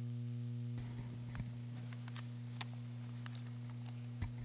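Steady low electrical hum from the room's microphone and sound system, with a faint higher buzz that stops under a second in. Scattered faint clicks and taps follow.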